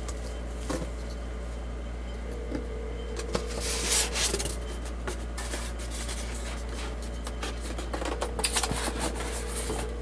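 Cardboard flaps and styrofoam packing being handled and rubbed while a speaker box is unpacked: scattered light scrapes and clicks, with two louder rustling scrapes about four seconds in and again near the end, over a steady low hum.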